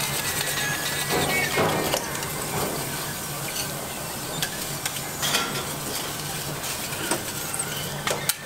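A closed, hot prawn-cracker press cooking a whole prawn between its steel plates. A thin high whistle fades out about a second and a half in, then a steady hiss follows, with a few sharp metal clinks of tools against the press.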